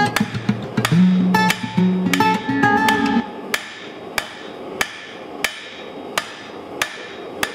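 Hammer blows on hot steel at the anvil, a steady beat of about three strikes every two seconds, under acoustic guitar music; the guitar stops about three seconds in and the hammer strikes carry on alone.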